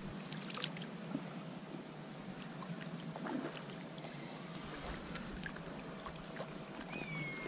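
Faint outdoor lakeside ambience: an even soft hiss with a few small clicks, and a bird's whistled call near the end that glides down and then holds a steady note.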